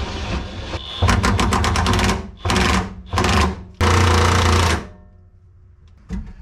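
Power tool with a rapid hammering rattle, like an impact wrench, run in about four bursts of half a second to a second each, while the fuel tank's mounting is fastened.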